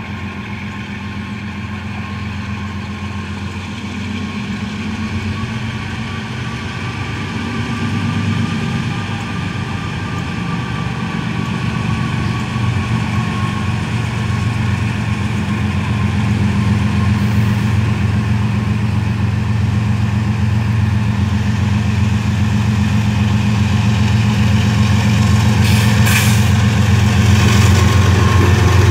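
Lead GE diesel-electric locomotives of a freight train, an ES40DC and a CW44AH, running as they approach and pass, their low engine hum growing steadily louder. A few sharp clacks come near the end as the locomotives reach the spot.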